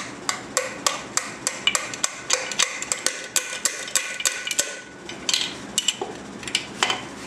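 Socket ratchet on stacked extensions clicking about three times a second as it backs out a connecting-rod cap bolt on a Nissan KA24DE engine. Near the end the clicking gives way to a few scattered metal clicks as the rod cap is worked loose by hand.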